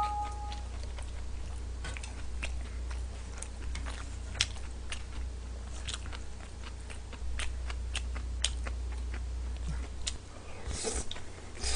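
Close-up chewing of stir-fried udon noodles, with many small wet mouth clicks, then a noisy slurp of a mouthful of noodles near the end.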